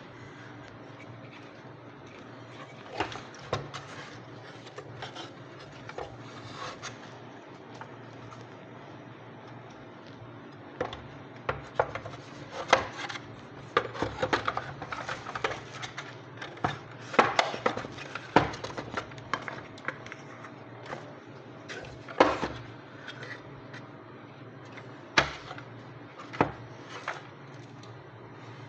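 Hand work on a vacuum cleaner's motor: irregular clicks, taps and scraping of tools and small metal and plastic parts as the carbon brush bracket is handled and screwed in, busiest in the middle.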